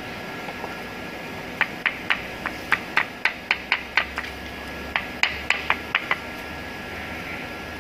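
Claw hammer knocking a wooden block against the edge of engineered parquet floor panels to tap the joints tight: two runs of quick, sharp strikes, about four a second, with a short pause between them.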